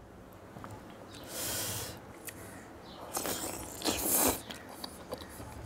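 Eating noises from biting into a gravy-coated chicken leg piece: a few short wet slurping and sucking sounds, about one and a half, three and four seconds in, the last the loudest.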